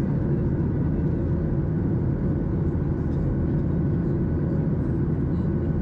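Steady cabin noise of a Boeing 737-800 climbing, heard from a window seat over the wing: the low rumble of its CFM56 jet engines and rushing airflow, with a few faint steady hums above it.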